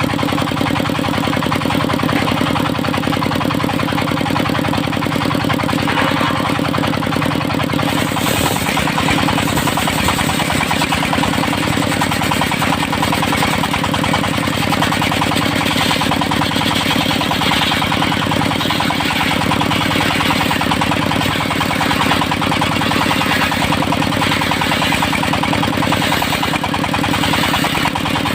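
Engine of a portable circular sawmill running steadily; about eight seconds in the sound changes and a harsher, higher hiss joins it, as the saw blade works through teak.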